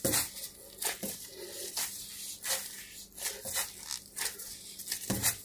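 Gloved hands kneading soft homemade flour-and-oil play dough on a granite countertop: irregular squishing, pressing strokes, about two a second.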